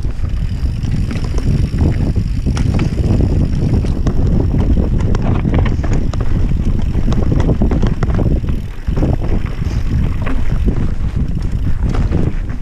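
Banshee Spitfire mountain bike descending rough rocky singletrack at speed: tyres rumbling over dirt and rock, with frequent sharp knocks and rattles from the bike over the rough ground. Wind buffets the camera microphone throughout.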